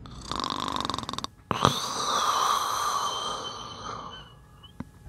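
A man groggy from anaesthesia after surgery giving a croaky, raspy groan in place of words, in two stretches, with a sharp click about a second and a half in.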